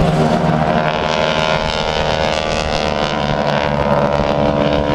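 Two aerobatic biplanes flying past in close formation, their piston engines and propellers giving a steady drone.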